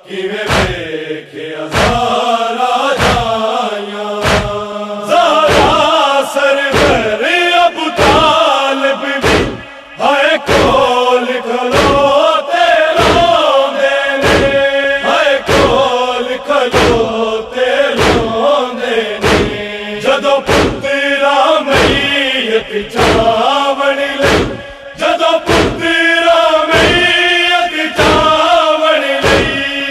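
Male group of noha singers chanting a mournful Punjabi noha in unison, with a lead voice and chorus, over a steady beat of matam, rhythmic chest-beating.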